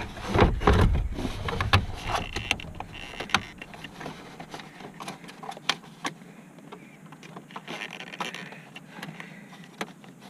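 Hands working wiring under a 2001 Ford F-150's dashboard behind the pulled-out gauge cluster: scattered clicks, rubs and knocks of wire and plastic trim. There are heavier low knocks in the first two seconds.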